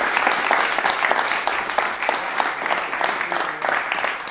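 Small indoor audience applauding, many hands clapping at once, tapering off slightly near the end.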